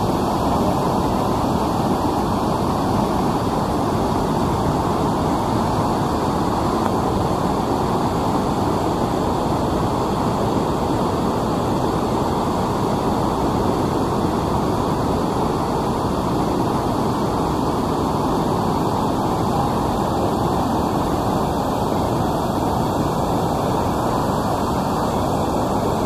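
Steady, loud rush of a whitewater cascade: a mountain river in heavy flow pouring over boulders close by.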